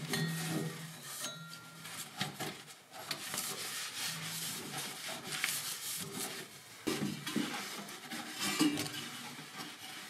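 A cloth rubbing and wiping over a refrigerator compressor and its copper tubing, with scuffs and occasional light knocks against the metal.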